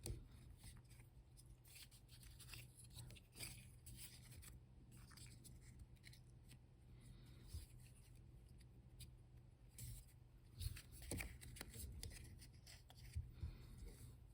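Faint snips and scratchy rubbing of small scissors cutting a piece of black craft foam, in short scattered clusters.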